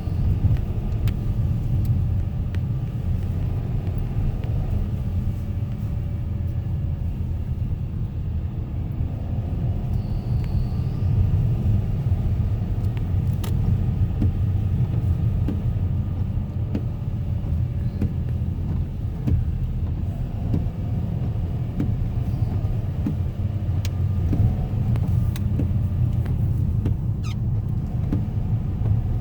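2013 Nissan Rogue with CVT driving in gear, a steady low rumble from engine and road with a faint, steady high squeak over it. The squeak comes only past about 2500 rpm in gear; the owner suspects the CVT or a heat shield.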